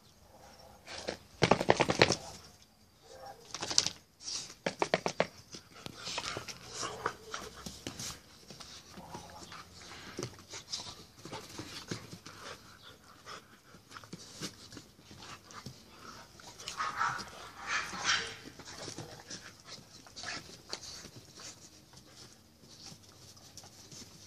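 Two young bulldogs play-fighting, barking and panting in short irregular bursts. The loudest bursts come about 1.5 s in, around 4–5 s, and around 17–18 s.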